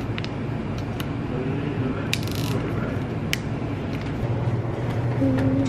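Plastic vacuum-pack sausage wrapper being picked at and torn open by hand: scattered crinkles and clicks, with a short tearing rustle a little over two seconds in, over a steady low hum.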